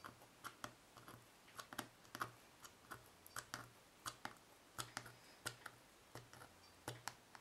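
Piercing tool pricking holes through a paper tag, its point pushed through the holes of a ruler: a series of faint, sharp clicks, two or three a second at an uneven pace.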